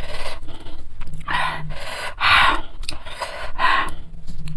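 A woman panting hard, with quick, loud breaths repeating about once or twice a second, as she breathes through the burn of very spicy bird's-eye chilies.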